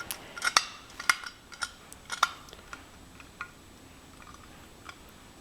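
Hand screwdriver tightening a screw into a nut that holds a stand leg to the base plate: small, sharp clicks and ticks, about two a second at first, then sparser.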